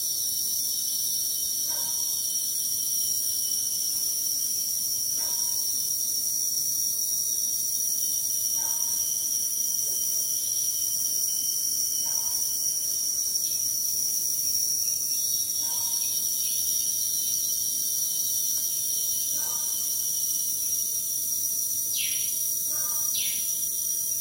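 Wild hornbill calling in the distance, one short call about every three and a half seconds, over a steady high drone of forest insects. Two quick falling whistles come near the end.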